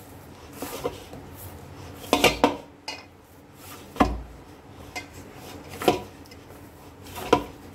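Stiff wheat-flour and jaggery dough being kneaded by hand in a stainless steel bowl, with a few irregular knocks and clanks as the dough and hand press against the steel, one of them a heavy thump about four seconds in.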